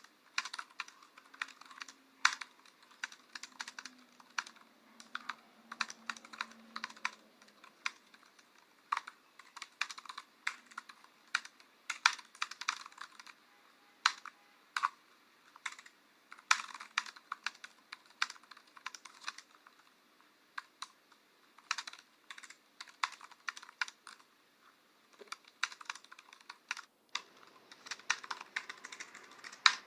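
Typing on a computer keyboard: irregular runs of key clicks, broken by short pauses between bursts.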